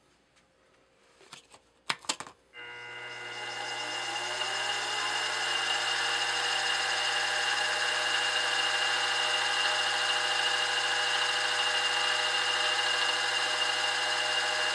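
A few clicks, then the Grizzly G0704 milling machine's spindle motor starts about two and a half seconds in, its whine rising as it comes up to speed and then running steadily with an end mill in the spindle.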